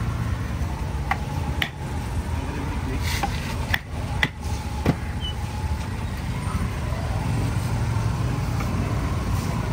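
A handful of sharp knocks, clustered in the first half, as a wooden club is struck onto the spine of a knife to chop through a large fish, over a steady low rumble.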